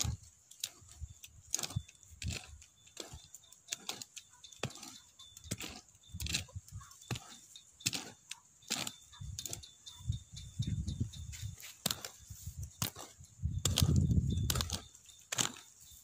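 Long-handled hoe chopping into dry soil, digging a planting hole: a run of irregular sharp strikes and scrapes, about one or two a second. Two spells of low rumble come about ten and fourteen seconds in, the second the loudest sound here.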